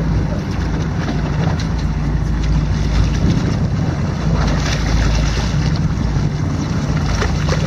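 Fishing boat's engine running steadily at idle, with wind buffeting the microphone and water splashing alongside the hull as a hooked mahi-mahi thrashes at the surface.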